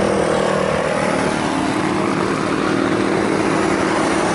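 Jet engines of a Boeing 737-800 freighter (CFM56-7B) running at high power on its takeoff from the runway, a loud steady noise with humming engine tones.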